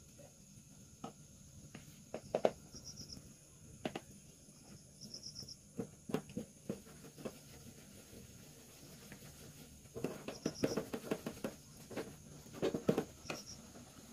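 Hands working soft dough on a steel tray: scattered light pats and taps, busier in two short stretches in the second half. A cricket chirps briefly every few seconds.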